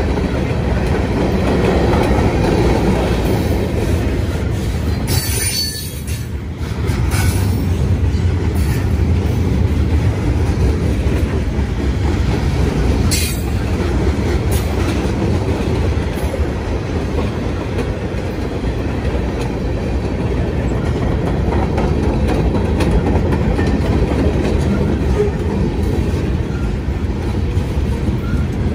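Norfolk Southern mixed freight train's cars (covered hoppers, tank cars and boxcars) rolling past close by: a steady rumble and rattle of steel wheels on rail. Brief high-pitched wheel squeals cut in about five seconds in and again near the middle.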